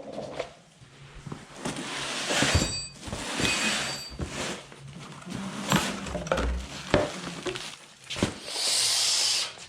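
Metal tools and parts clinking, clanking and knocking during hand work on the car's clutch parts. There are several rushing, hissing swells, and near the end a steady high hiss lasts about a second.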